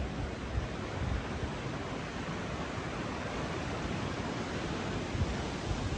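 Steady rushing of a river swollen with floodwater, with wind buffeting the microphone in uneven low gusts.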